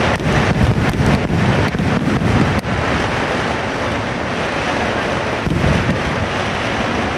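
Kerala temple fireworks barrage: a dense, continuous rumble of firecracker explosions with many sharp cracks on top, thickest in the first three seconds and thinning after.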